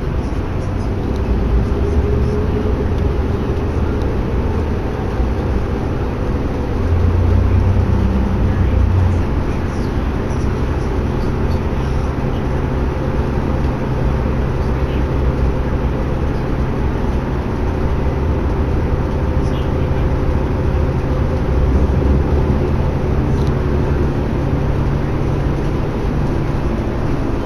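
Cabin noise aboard a New Flyer D60LFR articulated diesel bus at highway speed: a steady engine drone and road rumble, swelling louder for a couple of seconds about seven seconds in.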